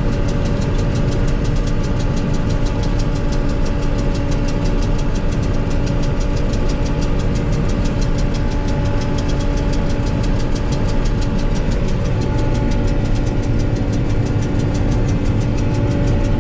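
John Deere 8820 combine running steadily while harvesting soybeans, heard from inside the cab: a constant engine and machinery drone with a steady hum.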